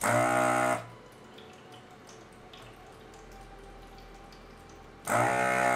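Hakko FR-301 desoldering gun's built-in vacuum pump buzzing in two short runs of just under a second, at the start and again near the end, as the trigger is pulled to suck molten solder out of a through-hole. Between the runs a cat water fountain trickles faintly.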